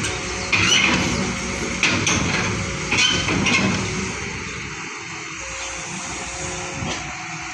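JCB excavator's diesel engine running, with several sharp metal clanks in the first three and a half seconds, then a quieter, steady engine drone.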